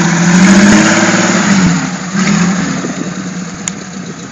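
Six-cylinder Jeep engine revving, its pitch rising and then falling over the first two seconds, then growing steadily fainter.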